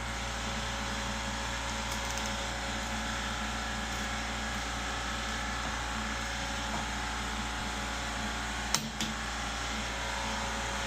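Steady hum of shop machinery idling, with two sharp clicks about nine seconds in.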